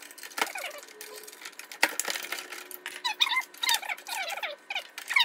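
Metal parts of a Leigh dovetail jig clicking and knocking as a screwdriver works loose its clamping-bar fittings. From about three seconds in there is a quick run of short squeaks that fall in pitch as the parts are worked off the bar.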